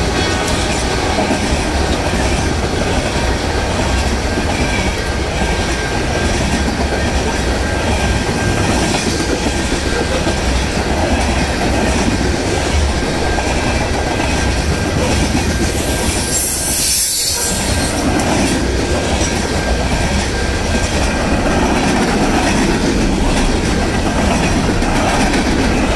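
Freight train of loaded covered hopper cars rolling past close by: a steady heavy rumble and clatter of steel wheels on the rail joints, with a faint steady high wheel squeal. The noise drops out sharply for a moment about two-thirds of the way through.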